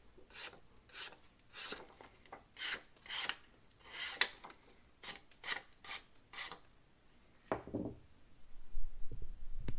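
Freshly sharpened kitchen knife slicing through something in a series of about ten short, hissing strokes, followed by a lower, fuller sound about three-quarters of the way in.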